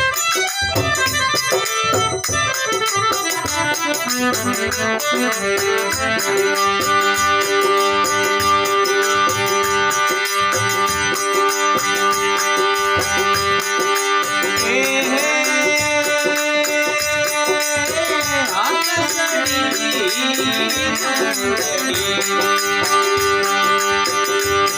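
Instrumental interlude of Rajasthani folk bhajan music: a sustained melodic instrument, keyboard or harmonium-like, playing over a steady hand-drum and rattle rhythm.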